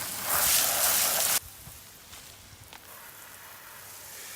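Water spraying from a garden hose onto an RC car's body shell, a loud hiss that cuts off suddenly about a second and a half in, leaving only faint ticks.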